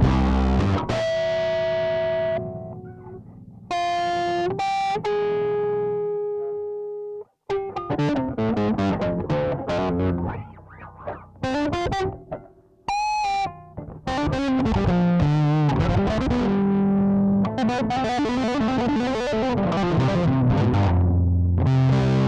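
Electric bass played through a BassMetal distortion effect with the gain at 30: a few held, distorted notes first, then faster riffs with slides up and down the neck, ending in low repeated notes. The sound cuts out briefly about seven seconds in.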